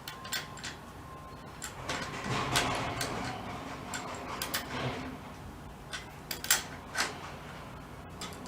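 Small metal clicks and ticks, irregularly spaced, of a wrench working the nut on a bicycle's front brake cable, tightening it so the cable won't loosen.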